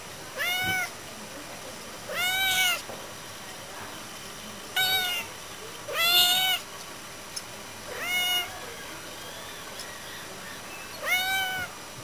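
A domestic cat meowing over and over, six loud meows that each rise and fall in pitch, spaced one to three seconds apart: the cat is crying because it is stuck on a roof and wants to get down.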